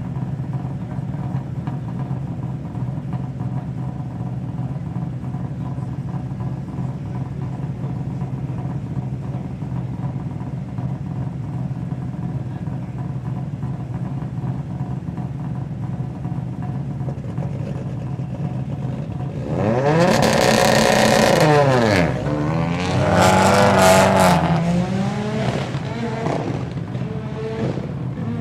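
Audi Quattro S1 rally car's turbocharged five-cylinder engine idling steadily, then blipped hard twice, about twenty and twenty-three seconds in, the pitch climbing and falling back to idle each time.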